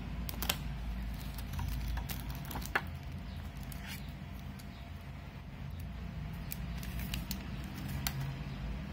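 Cardboard earbud box and its plastic wrapping being handled: the box slid out of its sleeve, with scattered light clicks and short rustles over a steady low rumble.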